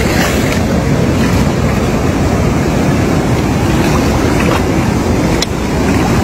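Shallow floodwater sloshing and splashing as a person wades and dips a plastic basket into it, over a steady rumble of wind on the microphone. A single sharp click about five and a half seconds in.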